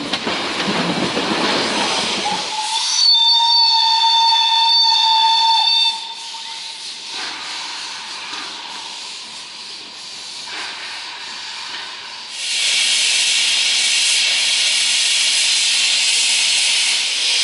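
Steam locomotive 314.303 hissing as steam escapes from around its cylinders, with one steam whistle blast of about three seconds starting about three seconds in. A loud, steady hiss of escaping steam follows near the end.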